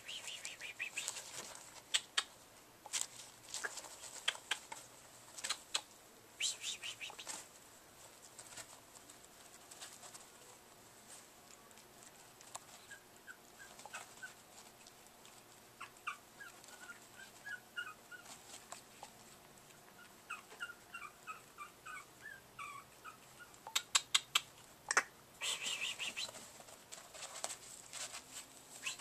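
Five-week-old Chihuahua puppies play-fighting, giving short high-pitched squeaks and yips in quick runs, with bursts of sharp scratchy clicks from their scuffle near the start and again near the end.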